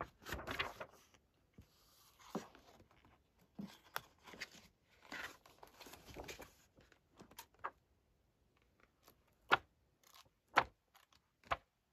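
Pages of a large hardback book being turned and handled: soft paper swishes and rustles, then three short sharp clicks near the end.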